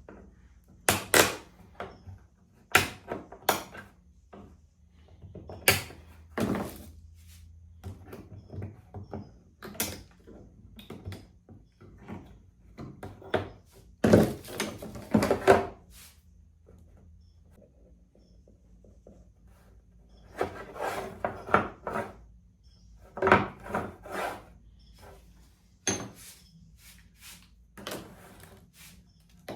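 Wooden ultralight wing parts being handled on a workbench: irregular knocks, clacks and scraping of wood on wood, in clusters with short pauses between.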